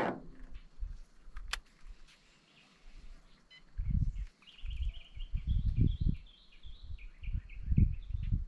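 A bird calling in rapid runs of short chirps from about four seconds in, over irregular low rumbling. There is a brief loud whoosh at the very start and a single sharp click about a second and a half in.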